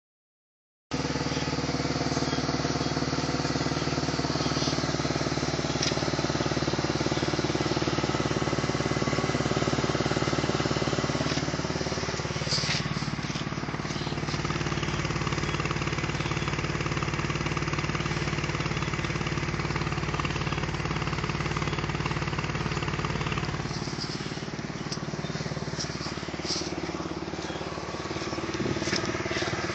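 BMW E46 330Ci's 3.0-litre straight-six engine running steadily at idle, with a few short clicks; the owner suspects an exhaust leak.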